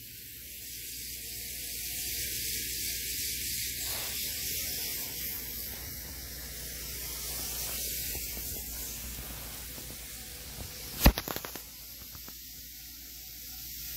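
Tomix N-scale 485 series model train running on its track, a steady hissing whir from its motor and wheels that swells and then fades as it passes. A single sharp knock about eleven seconds in.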